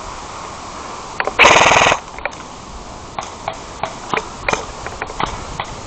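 Airsoft gun firing a short full-auto burst of about half a second, a rapid rattle of shots, about a second and a half in. Single sharp airsoft shots or pops follow at irregular intervals.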